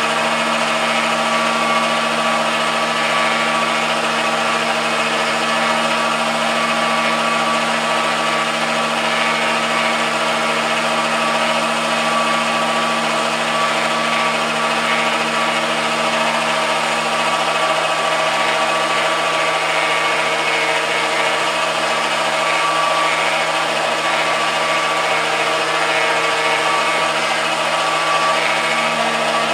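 The motor drive of an MDF rose engine lathe running steadily through a full cutting circuit of a guilloche basket weave pattern. It makes a constant machine whine made of several steady tones.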